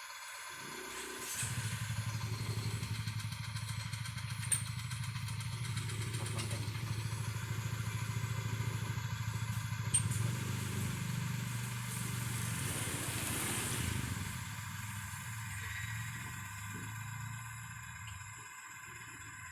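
Oil-demonstration friction test rig running under load: a steady motor hum begins about a second in, with two sharp metallic clicks, and grows weaker near the end.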